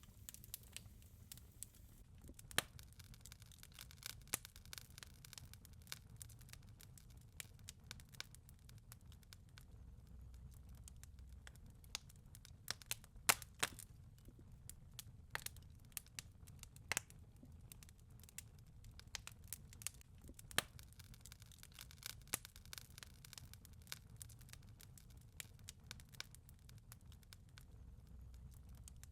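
Wood fire crackling in a fireplace: faint, irregular pops and snaps over a low steady rumble.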